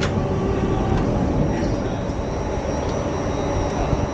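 Steady, loud rumble and hum of a subway train standing at the platform with its doors open, with passengers' voices in the background.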